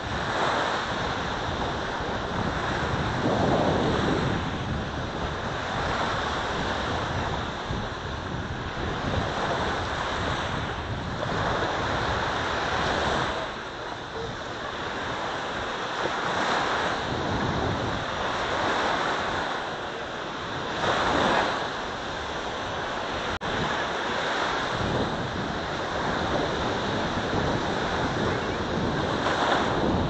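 Small waves breaking and washing up onto a sandy shore, surging every few seconds, with wind rumbling on the microphone.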